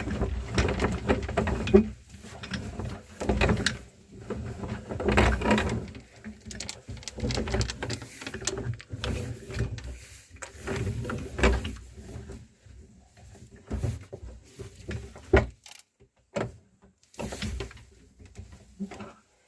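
Meat grinder crushing mini chocolate candies: irregular crunching and cracking, in clusters with brief lulls, over a faint steady hum.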